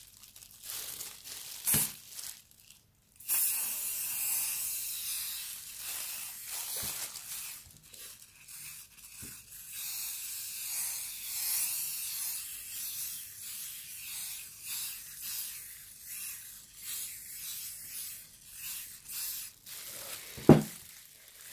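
Aerosol hairspray can spraying in a long hiss that swells and eases as it sweeps over a glass 3D-printer bed, starting about three seconds in. A few light clicks come before it, and a sharp knock near the end.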